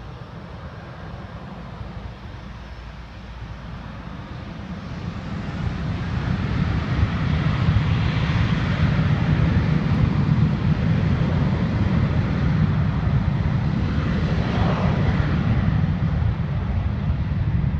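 Jet airliner engines roaring, growing much louder about five seconds in and staying loud.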